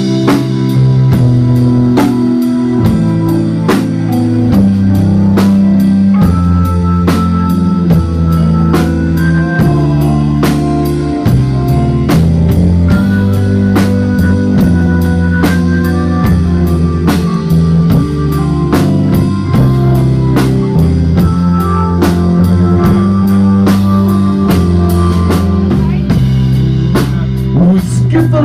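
Live rock band playing an instrumental passage: a steady drum-kit beat, a moving electric bass line and an electric guitar melody.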